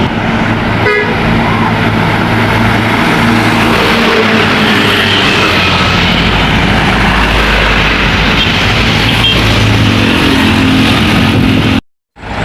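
A tour bus's engine running close by with heavy road noise, and a brief horn toot about a second in. The sound cuts out for a moment near the end.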